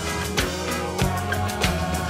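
Band music from electric guitar and drum kit, with a steady beat.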